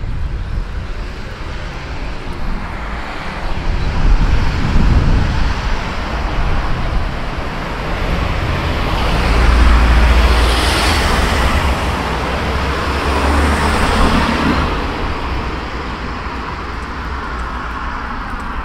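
Road traffic on a city street: a few vehicles pass close by one after another, the loudest about ten seconds in, over a steady wash of traffic noise.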